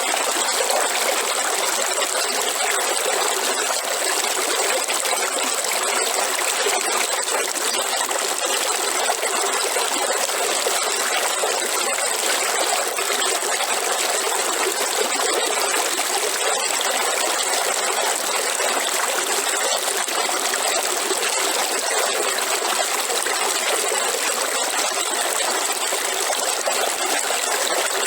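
River water flowing and trickling over rocks: a steady, even rush with no change.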